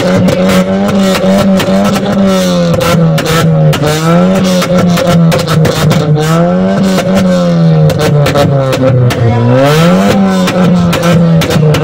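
Modified hatchback's engine revved hard through a loud aftermarket exhaust, held at high revs with the pitch swinging up and down. It drops low about nine seconds in, then climbs back up.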